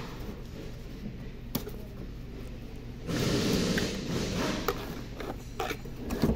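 Fingers rubbing and scraping on a cardboard box and its packing tape, loudest about three seconds in, with a sharp click before it and a few light taps and clicks after it.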